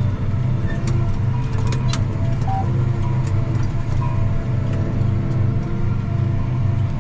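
Steady engine drone heard from inside a moving vehicle's cab, with small scattered rattles and clicks over it.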